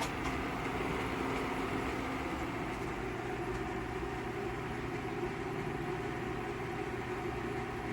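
Water in a stainless steel tea kettle on an induction cooktop heating toward the boil, a steady rumbling hiss as it starts to boil, mixed with the steady hum of the cooktop's and power station's cooling fans.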